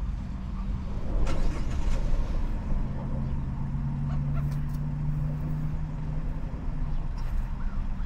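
Car engine running with a low, steady rumble; a louder steady engine drone comes in about three seconds in and fades out near seven seconds.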